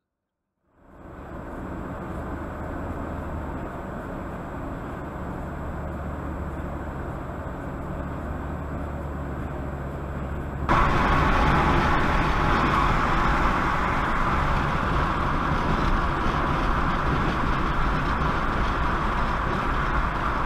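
Steady road and engine noise of a car driving at highway speed, heard from inside the cabin through the dashcam. It fades in about a second in, and about halfway through it cuts abruptly to a louder, brighter road noise.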